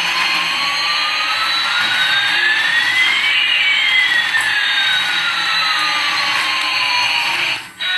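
Jet airliner engine sound, like the one played by a toy A380: a steady rushing hiss with one whine slowly rising and another slowly falling across it, cutting off suddenly near the end.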